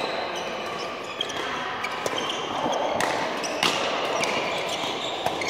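Badminton rally: sharp strikes of rackets on a shuttlecock, a few of them, with the loudest pair near the middle, plus short squeaks of shoes on the court mat.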